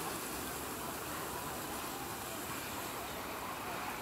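Steady seaside noise: an even hiss of the sea washing against the rocks and shore, with no distinct events.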